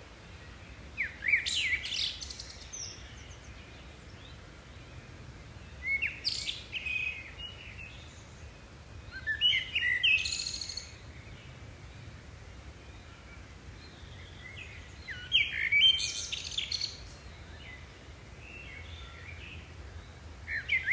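A songbird singing short phrases of quick whistled and chirping notes, five phrases about every four to five seconds, over a low steady background hum.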